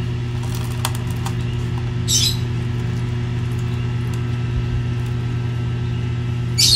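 A steady low mechanical hum throughout, with two short high-pitched bird chirps, one about two seconds in and one near the end.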